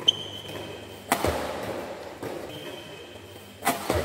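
Badminton rackets striking a shuttlecock during a doubles rally: sharp smacks just after the start, about a second in, and twice more near the end, each trailing a short echo in the hall.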